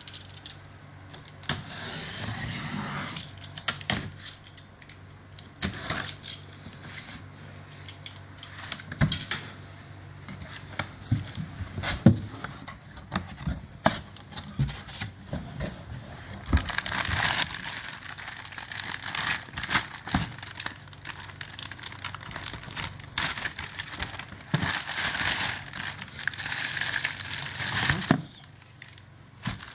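Cardboard box and plastic packing being opened and handled: rustling and tearing in several stretches, with scattered clicks and knocks.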